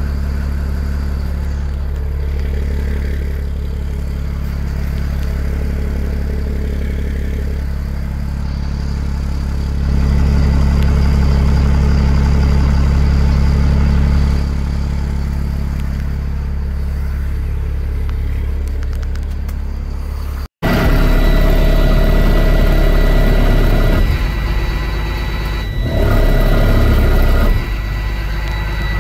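Caterpillar C7 inline-six diesel engine idling on its elevated warm-up idle after a cold start, a steady even running that grows louder for about four seconds partway through. After a sudden break it is heard from the cab, with a steady high tone over the engine and the level stepping up twice for a second or two.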